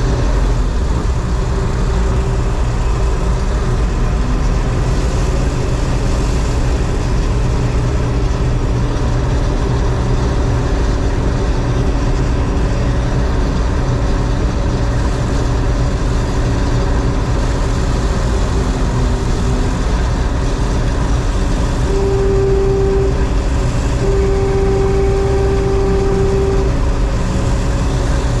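John Deere 4400 combine running steadily while harvesting soybeans, its engine and threshing machinery making a constant loud hum. Near the end a steady tone sounds twice over the machine noise.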